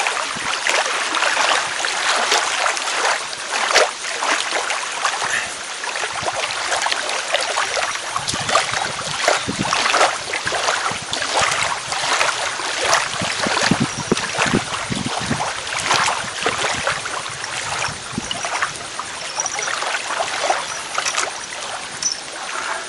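Water splashing and lapping, a steady, irregular rush of many small splashes.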